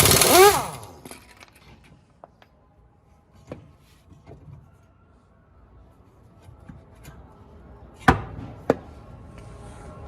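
An impact wrench hammering, then winding down in falling whines and stopping about a second in. After it come a few light tool clicks and two sharp metal knocks near the end.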